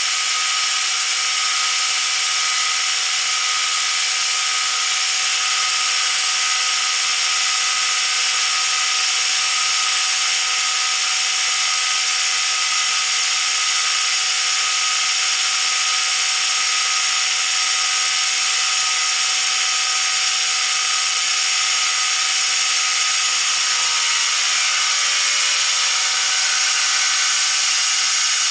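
Deckel FP1 milling machine cutting metal with a carbide-insert cutter: a steady high hiss of cutting with several steady tones from the spindle and drive, shifting slightly near the end.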